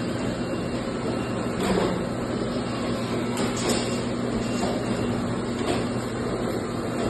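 Steady mechanical running noise: a continuous low hum over a rumble, with a few faint knocks.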